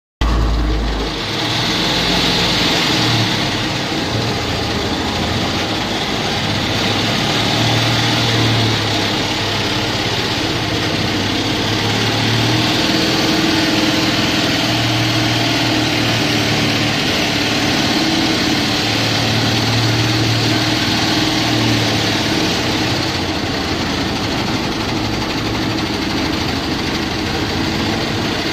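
Tractor engine running steadily, powering a batwing rotary mower (hydraulic folding-wing slasher) through its PTO shaft as it moves through tall grass and weeds.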